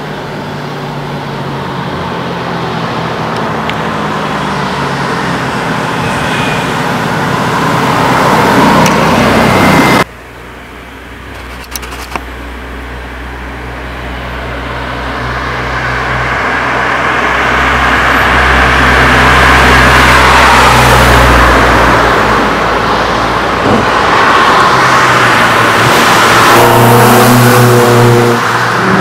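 Car engines approaching and passing along a road, the sound rising as each draws closer. It breaks off suddenly about ten seconds in, then builds again to a long loud pass, with a clear engine note near the end.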